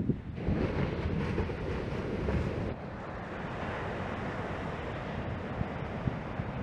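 Surf washing ashore, a steady hiss, with wind rumbling on the microphone.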